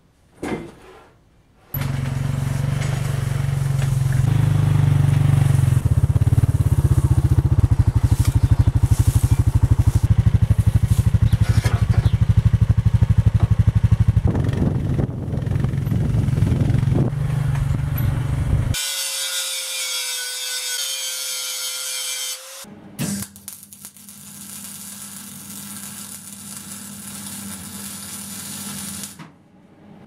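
Small petrol engine on a homemade band sawmill being started, catching about two seconds in and running loudly and steadily. Its sound changes about two thirds of the way in and gives way to a hiss with a steady tone, then a quieter hum.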